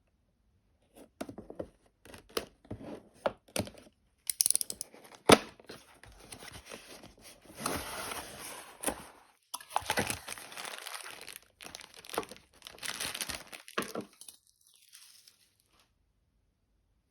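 Figure packaging being unwrapped by hand: repeated tearing and crinkling with sharp snaps and handling clicks, in several stretches of a second or two.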